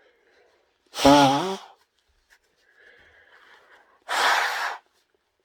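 A woman blowing her nose hard into a tissue: a loud, trumpeting honk about a second in, rising slightly in pitch, then a faint breath and a second, hissier blast without a tone near the end.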